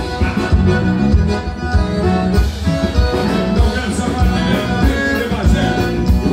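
Live gaúcho band music: piano accordions leading over electric guitar and a drum kit with a steady beat, no singing.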